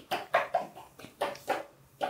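A string of short, squeaky, animal-like cries, about six in two seconds, each a brief separate yelp.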